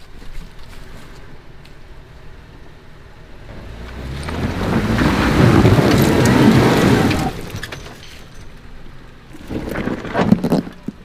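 Off-road vehicle attempting a slick, wet climb: the engine is revved hard and the tires spin and scrabble on the obstacle. The sound swells up about four seconds in and dies away about three seconds later.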